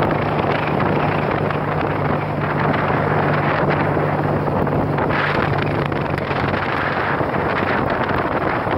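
Wind buffeting the microphone of a phone held on a moving motorcycle, over the motorcycle engine's steady low hum, which weakens about seven seconds in.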